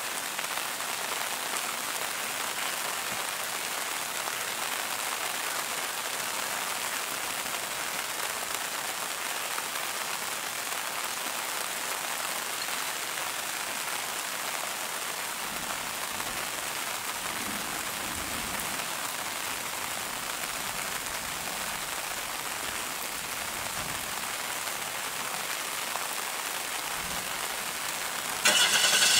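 Steady rain falling on foliage, an even hiss. Near the end, a brief, louder high-pitched sound with several stacked tones cuts in for under a second.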